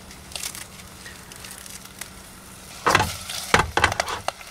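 Whiting heads, garlic and herbs sizzling in hot oil in a stainless saucepan on a portable gas burner: faint at first, then flaring into louder crackles and spatters from about three seconds in.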